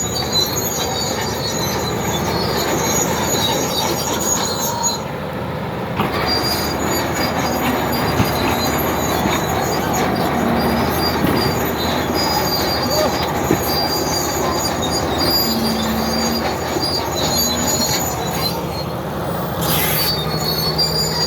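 Komatsu D80A crawler bulldozer working, its engine running steadily under load, with a high metallic squeal from its steel tracks.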